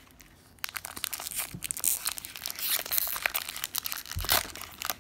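Foil wrapper of a Magic: The Gathering booster pack crinkling and tearing as it is ripped open by hand, starting about half a second in as dense crackling, with a louder crackle about four seconds in.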